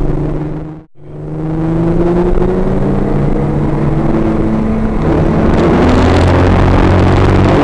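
Audi TT race car's engine running hard on track, its note gliding slowly upward and then holding steady. The sound briefly drops out about a second in and then returns.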